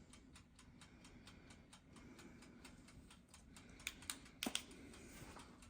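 Faint, quick, even ticking of a small oven's wind-up timer, running while the oven is on a timed tempering cycle, with a few louder clicks around four seconds in.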